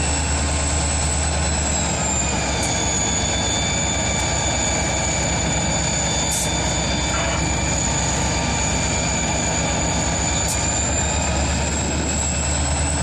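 EMD SD40-2 diesel-electric locomotive with its 16-cylinder turbocharged two-stroke engine, running as it rolls slowly past. It makes a steady low drone with a high whine on top, and the whine drops slightly in pitch about two seconds in and comes back up near the end.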